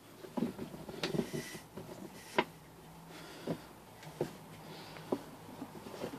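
Metal parts and hand tools of a small engine being handled during reassembly: scattered clicks and light knocks, a cluster about a second in and the sharpest click about two and a half seconds in.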